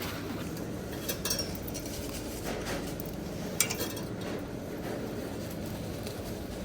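A few light clinks and knocks, like kitchenware being handled, the sharpest about three and a half seconds in, over a steady low background rumble.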